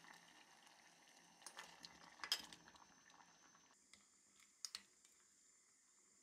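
Faint clinks and knocks of peach slices sliding into an enamel saucepan and a wooden spoon stirring against its sides, the sharpest knock a little past two seconds, over a faint hiss of syrup simmering on low heat that cuts off before the last few knocks.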